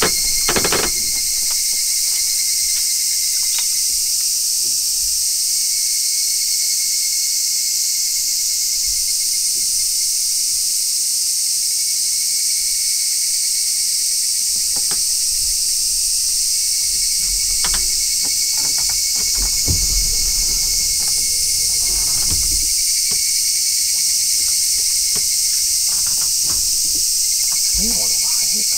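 A dense, steady chorus of summer cicadas, with a thinner, lower-pitched buzzing band that comes and goes every few seconds. Scattered light clicks and a few soft knocks from the fishing rod, reel and boat sound over it.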